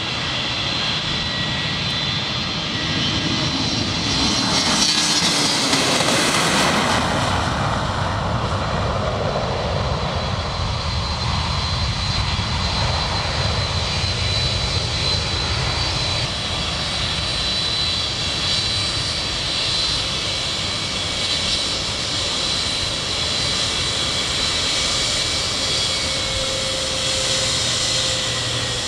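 Jet airliner's engines at takeoff thrust: a rear-engined twinjet rolls past, loudest about five seconds in with a falling pitch, then a steady roar with a high whine as it climbs away.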